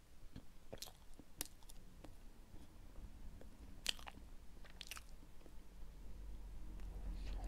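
Faint chewing and mouth sounds of a person eating taro, with a few short clicks scattered through, the clearest about four and five seconds in.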